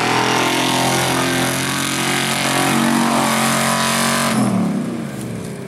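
Pickup truck engine revving hard at high, steady rpm while the truck plows through a mud pit. About four seconds in, the revs fall away and the engine quiets as the throttle is let off.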